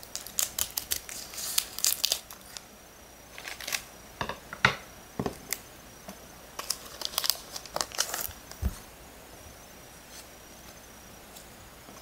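Foil wrapper of a Pokémon booster pack crinkling as it is cut open with scissors and handled, in several short bursts of crackling that die down near the end.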